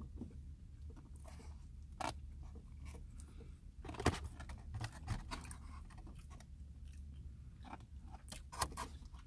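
Quiet eating: chewing, with a few short sharp clicks and taps of a plastic fork on a takeout plate, the loudest about four seconds in, over a low steady hum.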